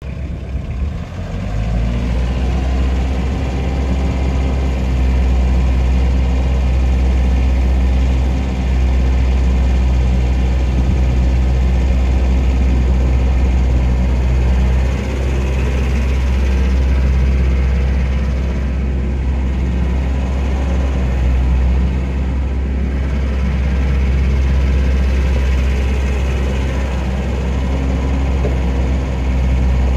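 Caterpillar 306 mini excavator's diesel engine running with a deep, steady drone while the boom and bucket are worked. It gets louder about a second in and dips briefly a few times.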